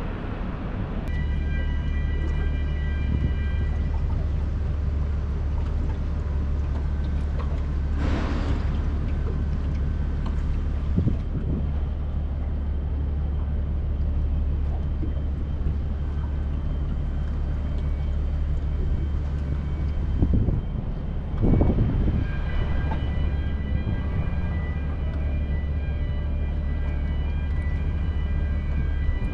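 Steady low machinery hum from a container ship and the wharf beside it, with a high whining tone that comes and goes, first near the start and again from about two-thirds of the way through. A few short knocks about a third of the way in and again after two-thirds.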